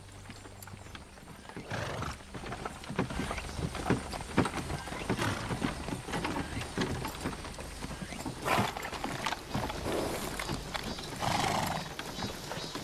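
Pack horses walking, their hooves clopping in an uneven run of steps, with a few louder horse calls about two seconds in, past the middle and near the end.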